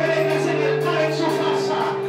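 Worship music: a man singing into a microphone over long held accompaniment chords.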